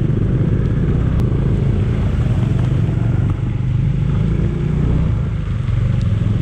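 Bajaj Dominar 400's single-cylinder engine running steadily as the motorcycle rides along.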